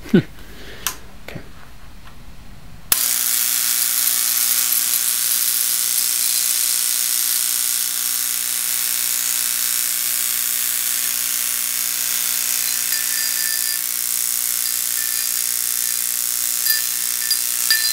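A few sharp clicks, then about three seconds in a homemade AC electromagnet, a transformer core run at 250 volts and around 30 amps, switches on with a sudden, loud, steady mains buzz. A piece of aluminum levitates on its field.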